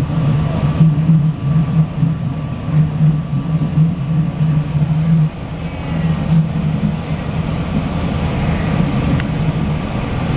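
PATCO rapid-transit car running along the track at about 20 mph, heard from its front cab area: a steady low rumble of wheels and motors with a faint steady high tone. The rumble drops briefly about five seconds in, then carries on.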